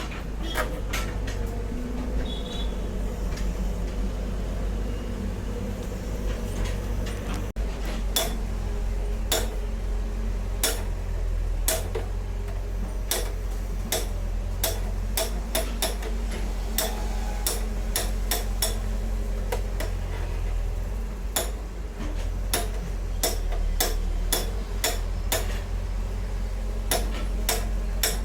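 Irregular sharp metallic clicks and taps of hand tools working on metal fittings, one to three a second, over a steady low hum.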